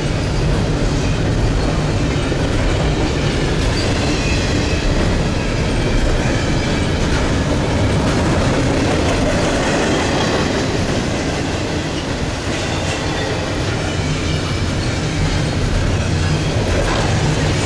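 Double-stack intermodal freight train rolling past at close range: a steady, loud rumble of wheels on rail and container cars going by.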